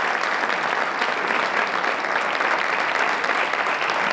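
Theatre audience applauding steadily, a dense continuous clapping.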